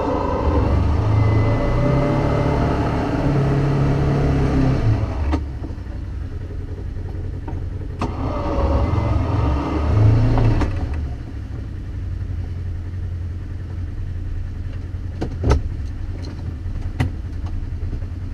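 Off-road vehicle's engine running and revving: throttle held for the first five seconds or so, then eased off, a second burst of revs from about eight to ten seconds, then lower, steadier running with a couple of sharp knocks near the end.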